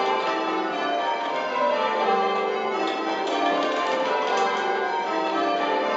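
Eight church bells change ringing Spliced Surprise Major, struck one after another in a steady, unbroken stream of overlapping rings, heard from the ringing chamber beneath the bells.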